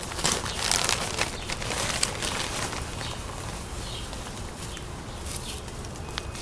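Packing material rustling and crinkling as a boxed orchid shipment is handled, with dense, sharp crackles for the first three seconds or so, then quieter handling.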